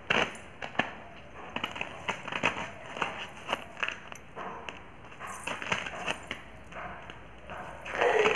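Raw rice grains crunching and crackling under wedge sandal soles as feet step and grind on a heap of rice on concrete, with the small bells of silver anklets jingling. Irregular clicks and crunches throughout, loudest just before the end.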